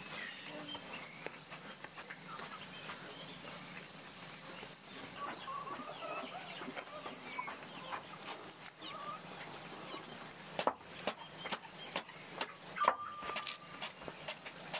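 Chickens clucking in short scattered calls, with a run of sharp clicks and knocks from about ten seconds in.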